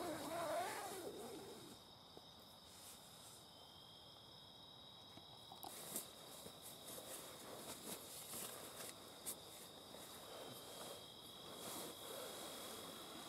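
Night insect chorus: a steady high-pitched trill. Over it, a brief wavering call fills the first second or two, and from about six seconds in come scattered sharp ticks.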